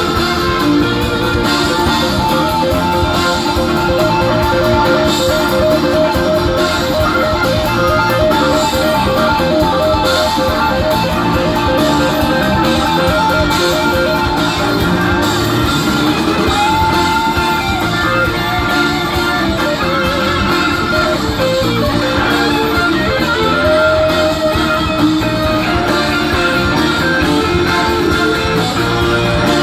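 Live rock band with two electric guitars soloing over bass and drums. One guitar picks a fast repeated note for the first dozen seconds, and a note bends upward partway through.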